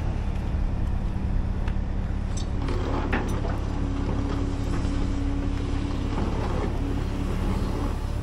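Large diesel engine running steadily with a low rumble, and a few short knocks about three seconds in.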